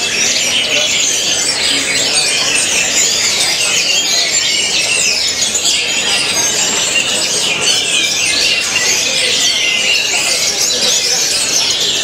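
Orange-headed thrush song: a continuous, dense stream of fast, varied high whistles and chattering notes with no pause.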